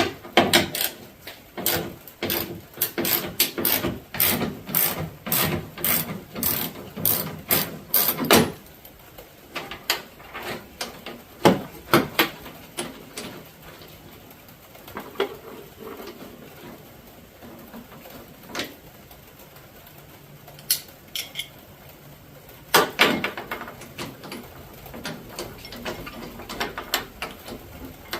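Ratchet wrench clicking in quick runs as a bolt on the truck's tailgate is turned, for about eight seconds. Then scattered clicks and knocks of tool and metal parts being handled, with a brief cluster of clicks near the end.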